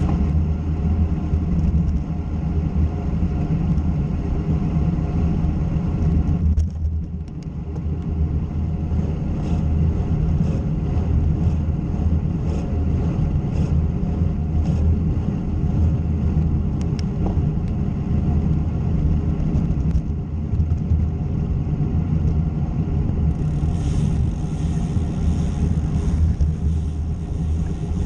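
Steady low rumble of wind and road noise while riding a bicycle, briefly easing about a third of the way in.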